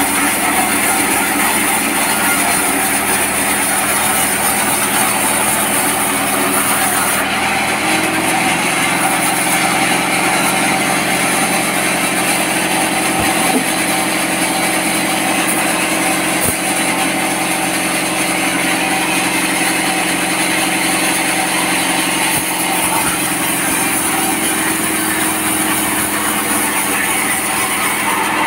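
Vertical band sawmill running and sawing lengthwise through a hard tropical log, a loud, steady machine noise with no break. A new steady hum joins about seven seconds in.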